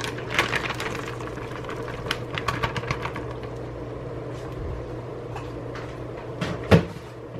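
Kitchen handling sounds as a bag of sauerkraut is worked open and emptied into a crock pot: scattered rustles and clicks, with one sharp knock near the end.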